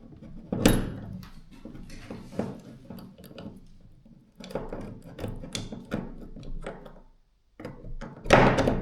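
Hammer drill gearbox parts being handled and fitted on a workbench: a string of clicks, taps and knocks, with a loud knock about two-thirds of a second in and another burst of knocks near the end.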